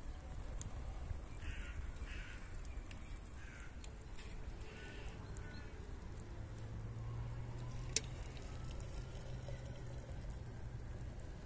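An animal or bird calling four times in quick succession over a steady low rumble, with a single sharp click about eight seconds in.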